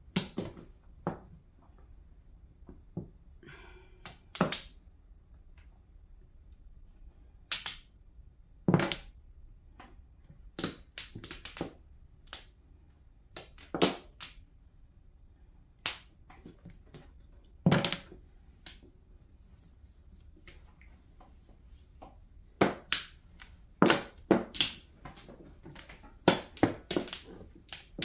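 Mahjong tiles clacking as players draw and discard them during play: sharp single clicks every second or two, with a quicker run of clacks near the end as a player handles and slides their row of tiles.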